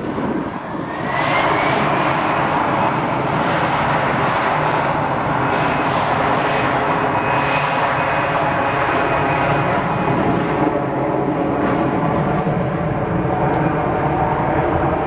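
Airbus A320 jet engines spooling up to take-off power: a whine rises in pitch over the first two seconds, and the engines then run steadily and loudly at high thrust.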